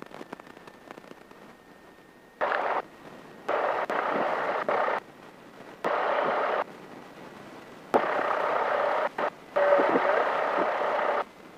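Light aircraft's headset intercom with its voice-activated squelch cutting in and out, passing about five short bursts of engine and wind noise, each half a second to a second and a half long, that switch on and off abruptly.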